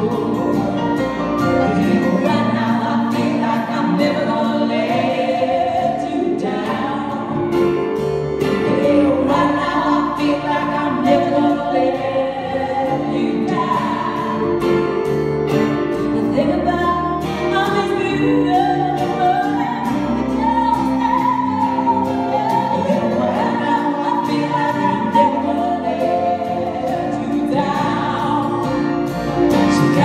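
A live band playing a song: acoustic guitar, electric guitar and bass guitar, with a woman and a man singing together.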